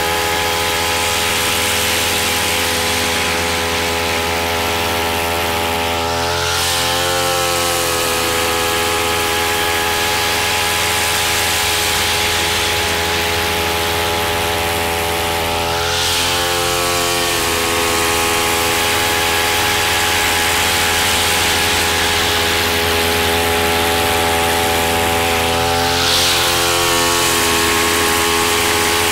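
DBL DB-328 brush cutter's 30.5cc single-cylinder air-cooled two-stroke engine running at cutting speed while its nylon trimmer line cuts grass. The engine note wavers briefly three times, about ten seconds apart.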